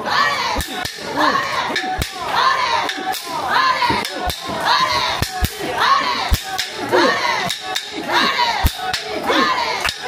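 Mikoshi bearers chanting together: many voices shouting a rhythmic call about once a second, with sharp knocks scattered irregularly among the shouts.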